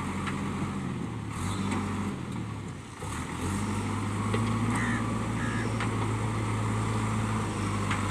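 JCB 3DX backhoe loader's diesel engine running steadily. It eases off and dips briefly about three seconds in, then picks up again and holds steady.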